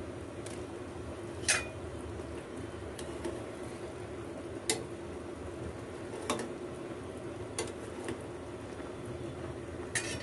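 Metal ladle stirring thick Manchurian gravy in a metal pan, clinking sharply against the pan about half a dozen times over the steady sound of the gravy boiling.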